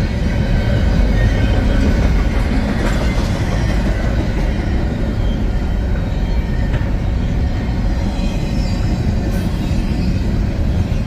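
BNSF double-stack intermodal freight train rolling past: a steady, loud rumble of steel wheels on rail from the container well cars.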